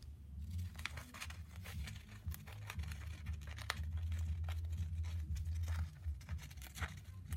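Paper crinkling and tearing in many small irregular crackles and snips as a pet bird chews it, over a low steady rumble.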